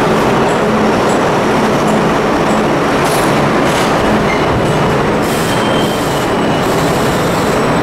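R32 subway cars rolling past along the platform as the train pulls in: a loud, steady rumble of steel wheels on rail, with scattered clicks and a faint high wheel squeal about five seconds in.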